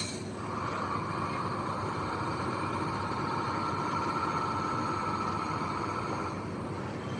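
Heavy construction machinery running steadily, with a noisy band of higher sound that comes in about half a second in and eases off near the end.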